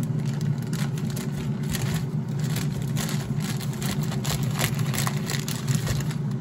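COSORI air fryer preheating, its fan motor whirring with a steady low hum, with light clicks and taps of handling close by.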